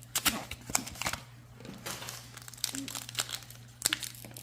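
Foil wrappers of Pokémon booster packs crinkling as they are handled and opened, in several short crackles that are loudest in the first second.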